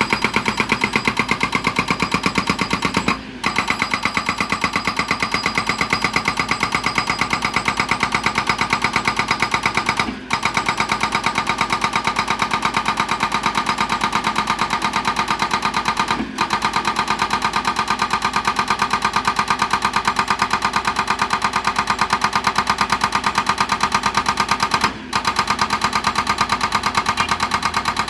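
Excavator-mounted hydraulic breaker hammering stones in a fast, steady rattle of blows, stopping briefly four times.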